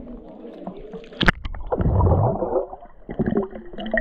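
Water splashing and gurgling as the camera goes under the surface: a sharp splash about a second in, then a stretch of muffled bubbling and churning water.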